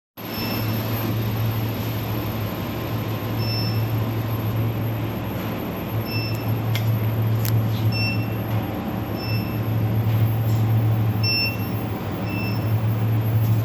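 SuperbMelt SPB-DH2 induction melting furnace running: a steady low hum with a faint high whine, and short high beeps now and then.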